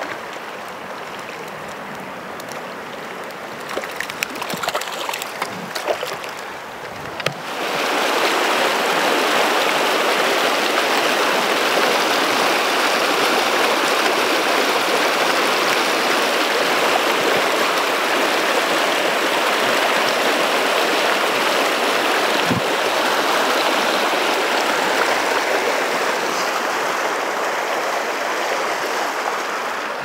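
Spring creek water rushing over rocks in a whitewater riffle, loud and steady. About seven seconds in it jumps suddenly from a quieter flow with a few small clicks to the full rush of the rapids.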